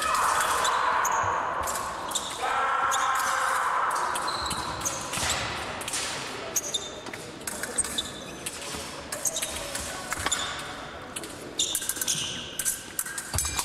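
Fencing bout in progress: footsteps and stamps on the piste with sharp clicks and short metallic pings of épée blades meeting. The loudest part is two sustained sounds of about two seconds each in the first four seconds.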